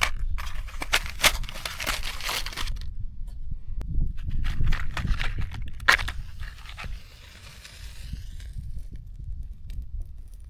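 Dry tinder and twigs crunching and crinkling as they are handled, in two spells of dense crackling with a pause between, over a low rumble.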